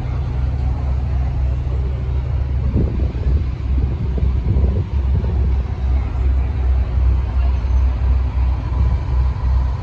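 Low, steady rumble of car engines in street traffic, with a busier stretch about three to five seconds in.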